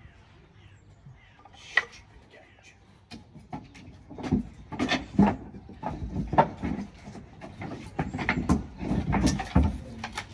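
Wooden planks and offcuts for kindling clattering and knocking together as they are picked out of a wooden cart and stacked in the arms. After a lone knock about two seconds in, a run of sharp, irregular wooden knocks starts about three seconds in.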